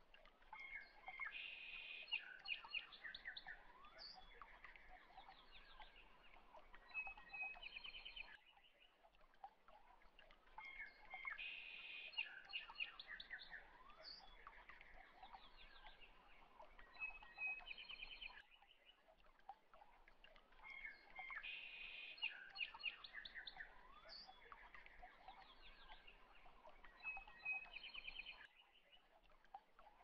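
Faint birds chirping and trilling, a short birdsong recording that repeats about every ten seconds.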